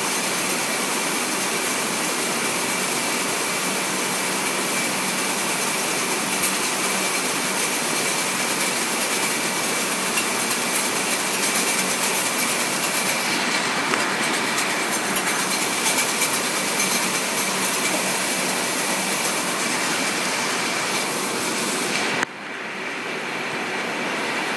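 Warehouse conveyor system running: a steady mechanical rattle and hum of rollers and belts, with a faint steady high tone over it. Near the end the sound drops suddenly and comes back muffled.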